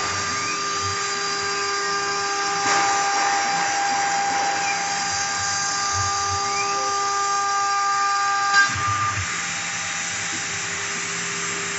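DEK-1325 CNC router's spindle running with a steady high whine while its bit cuts a wooden panel, with faint tones that rise and fall as the head moves. About eight and a half seconds in, the lower part of the whine drops away and the sound gets slightly quieter.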